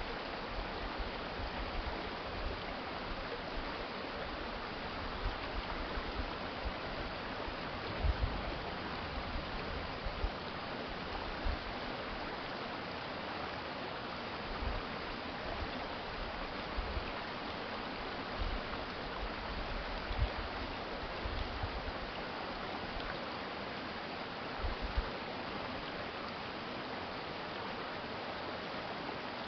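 A stream in the city flowing steadily, a continuous even rush of water, with a few brief low rumbles along the way.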